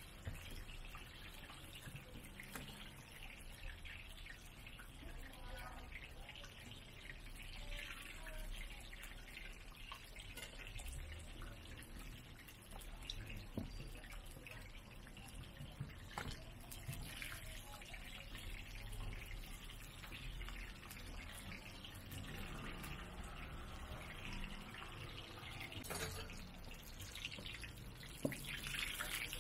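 Scallion pancakes shallow-frying in a large pan of hot oil: a steady sizzle and bubbling, a little louder near the end, with a few sharp metal clicks.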